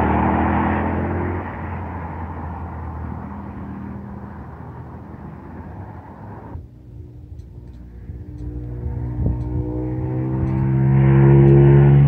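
The engine and tyre noise of a passing vehicle fades away, then cuts off abruptly about halfway through. An Aprilia RSV1000R's V-twin engine then approaches, growing steadily louder to its loudest near the end.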